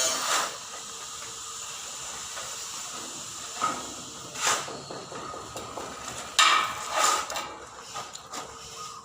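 Steady hiss with a few sharp knocks, the loudest about six and a half seconds in.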